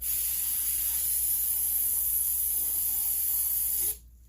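Pressurised jet hissing steadily while a chainsaw cylinder is cleaned; it cuts off suddenly about four seconds in.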